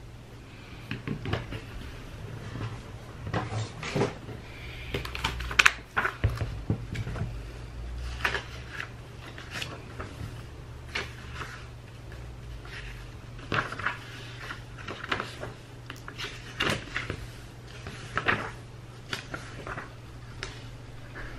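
Objects handled on a desk: irregular taps, knocks and paper rustles as a stylus is set down on a tablet and a paper textbook is pulled over and opened. A steady low hum runs underneath.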